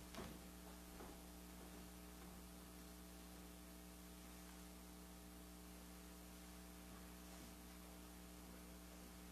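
Near silence: room tone with a steady electrical hum, and a couple of faint knocks in the first second.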